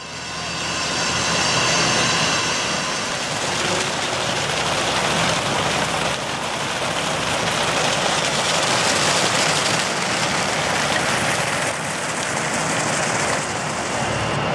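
Fountain jets spraying and splashing down into the basin: a steady, loud rush of falling water that swells up over the first second or two.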